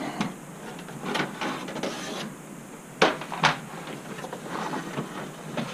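Handling noise from an opened desktop computer tower being worked on: a few sharp knocks and clicks against its metal case, the loudest two about three seconds in.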